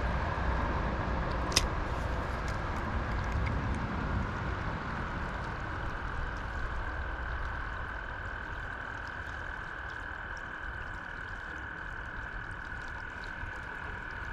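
River water running and gurgling over a shallow rocky riffle, a steady rushing that slowly eases, with a faint steady high tone underneath. One sharp click about a second and a half in.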